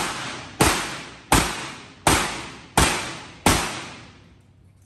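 Revolver fired five times, about 0.7 seconds apart, each shot ringing out and dying away in the reverberation of an indoor range.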